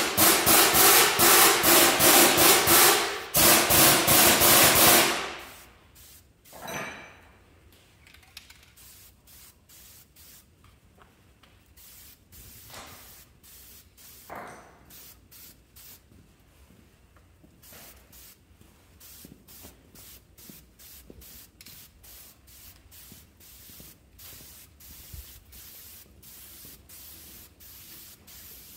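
A loud rushing hiss for about five seconds, then quieter shop sounds and a run of short hisses from an aerosol spray-paint can. The hisses become steady, about two a second, in the second half.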